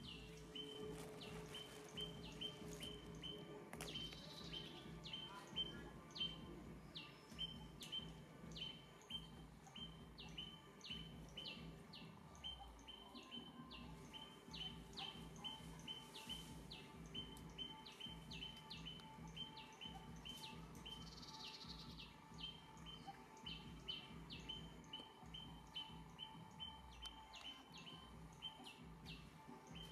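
Faint outdoor ambience with a short high chirp repeated evenly a few times a second, over a low steady background hum.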